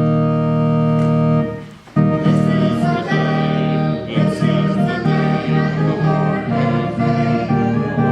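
Organ playing a hymn in full chords. A long held chord fades out about a second and a half in; after a brief gap the playing starts again with moving chords.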